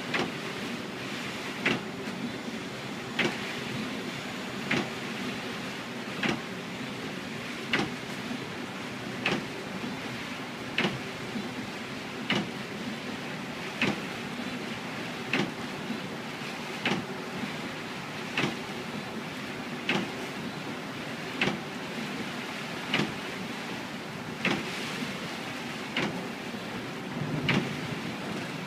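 Windshield wipers sweeping across the glass in a steady rhythm, one stroke about every one and a half seconds, over a constant hiss of heavy rain and road noise inside a moving vehicle.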